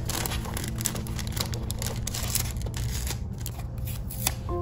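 Crinkling and rustling of a thin translucent paper sleeve and a sticker sheet being handled, with many small sharp crackles.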